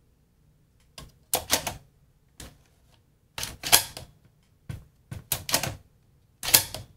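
Sharp metallic clicks and clacks from the opened Alpine CD changer mechanism as its sheet-metal parts and levers are pushed and released by hand, in about seven irregular bursts with quiet gaps between.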